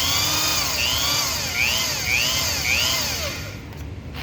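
Hand-held electric drill boring a bolt hole into a cast-iron small-block Chevy engine block, its whine rising and falling about twice a second as the bit bites. The drill stops a little after three seconds in.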